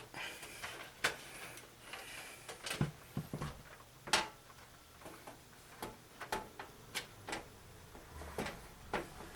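Scattered light clicks and knocks of hands handling parts inside a desktop computer case: metal panels, screws and cables being moved, about a dozen separate taps at irregular intervals.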